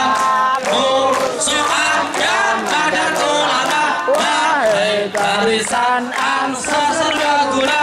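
A song sung by a group of voices, with a regular beat.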